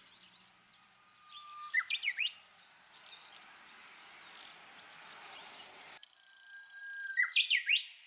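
Japanese bush warbler singing its 'hoo-hokekyo' song twice, about a second in and again near the end. Each song is a long steady note followed by a quick flourish of higher rising and falling notes.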